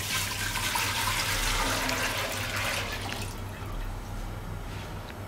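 Milk being poured from a container into a deep nonstick pot: a steady splashing pour that thins out and fades about three seconds in.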